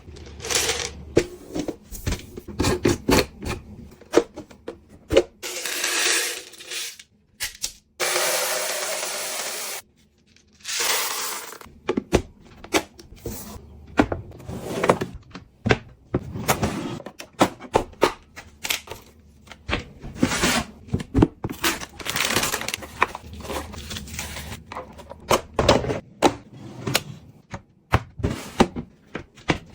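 Household items being handled up close: a quick run of small clicks, taps, knocks and scrapes, broken about a third of the way in by a steady hiss lasting about two seconds.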